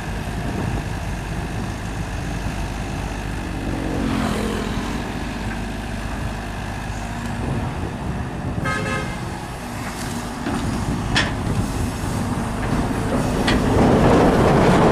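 Road traffic passing close by: vehicle engines and tyres, with one vehicle's engine note falling as it passes about four seconds in. A short horn honk sounds about nine seconds in, and another vehicle passes loudest near the end.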